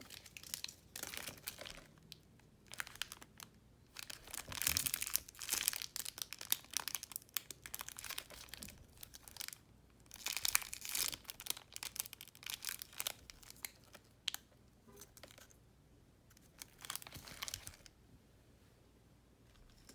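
Plastic packaging crinkling as it is handled, in irregular bursts of rustling that come in clusters and die down near the end.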